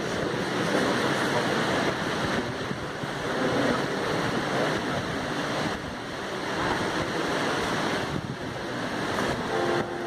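Steady crowd noise from a large church congregation: an even rush with no single voice or tune standing out.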